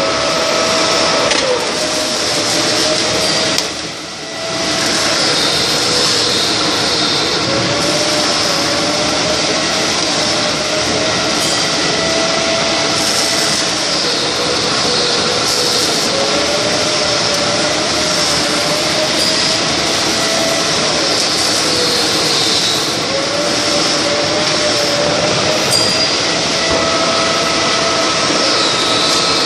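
Vertical milling machine running, its end mill cutting the flats of a hexagon on a fitting held in a chuck on a rotary table: a steady mechanical whir with a whine that slowly rises and falls as the cut goes on, dipping briefly about four seconds in.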